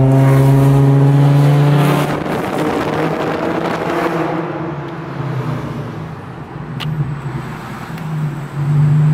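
Infiniti G35's engine droning steadily inside the moving car. About two seconds in it gives way to a louder rush of road and wind noise, and the steady drone comes back near the end.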